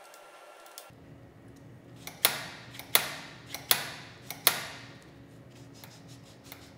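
Motorcycle twist throttle being turned and let go so it springs back against its stop, four sharp clacks about three-quarters of a second apart, each with a short metallic ring, working in fresh grease on the newly fitted throttle.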